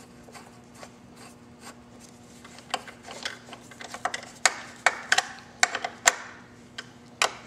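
Irregular sharp clicks and taps of small metal screws and a screwdriver being handled as mounting screws are threaded by hand into an amplifier's metal bracket, coming thick and fast in the second half. A faint steady low hum runs underneath.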